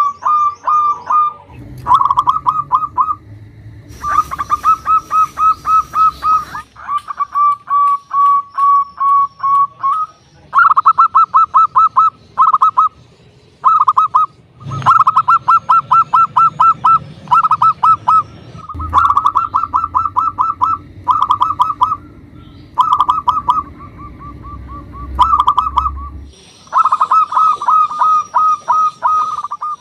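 Zebra dove (local perkutut) cooing over and over, each phrase a fast run of pulsed notes lasting one to a few seconds, with short pauses between phrases.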